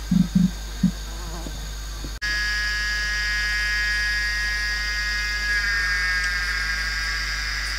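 A steady high buzzing drone starts abruptly about two seconds in, made of several stacked tones, and shifts in pitch a little past the middle. Before it come a few short low hums.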